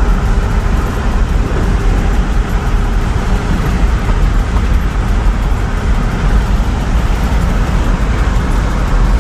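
Steady road and engine noise heard from inside a moving pickup truck's cab, a low rumble with an even hiss over it.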